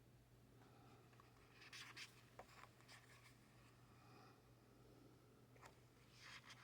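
Faint paper handling on a craft table: soft brief scratching rustles about two seconds in and again near the end, over a low steady hum.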